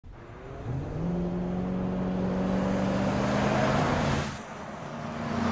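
SUV engines driving past on a city street. One engine rises in pitch and then holds steady under a swelling rush of road noise that cuts off abruptly about four seconds in. A second vehicle swells up near the end.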